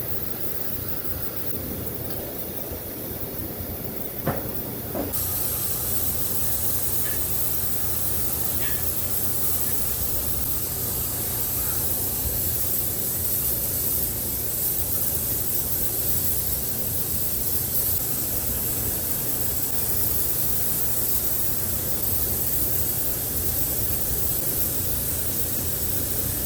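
Gas welding torch flame hissing steadily. Just after a sharp click about four seconds in, the hiss suddenly grows louder and higher, then holds steady.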